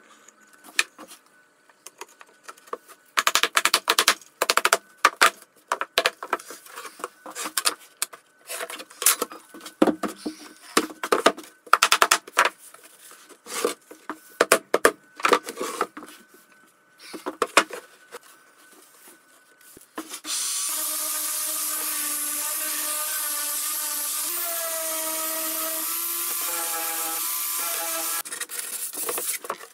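A run of sharp knocks from a rubber mallet tapping glued wooden frame joints together. About two-thirds of the way in, a random orbital sander starts and runs steadily, its motor whine wavering in pitch.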